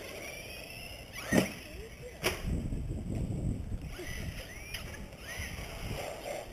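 Traxxas Slash 2WD RC short-course truck running, its electric motor whining up and down in pitch over a steady low rumble. Two sharp knocks, the louder about a second and a half in and another about a second later.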